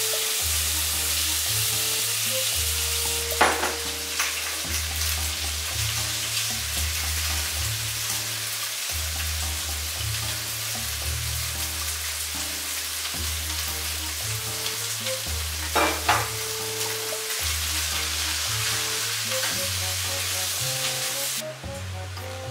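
Sliced pork and cabbage sizzling and being stirred in a frying pan, with two sharp knocks against the pan, one a few seconds in and one past the middle. The sizzle stops abruptly near the end.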